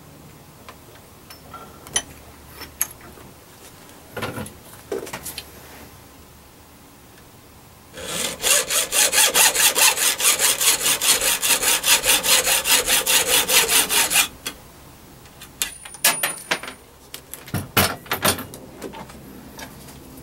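Hacksaw cutting a thin metal rod, the radiating element of a 440 MHz quarter-wave antenna, cut to length. Quick even strokes, about three a second, run for some six seconds in the middle. Light clicks and knocks from handling the rod and tools come before and after.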